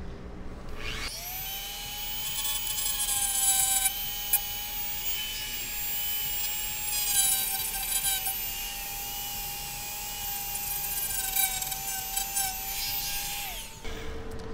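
Craftsman rotary tool with a small cutoff wheel spinning up with a rising whine about a second in, then running at a steady high whine with small dips in pitch as the wheel cuts into the plastic end of a PCIe slot, and switching off near the end.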